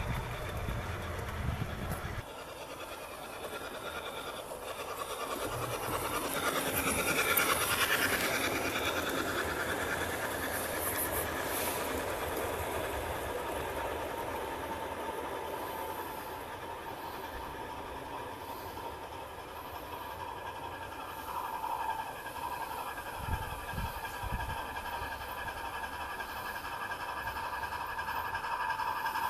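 O gauge model train of teak coaches running on garden-layout track, its wheels rumbling and clicking over the rail joints. The sound drops abruptly about two seconds in, swells again, then runs on steadily.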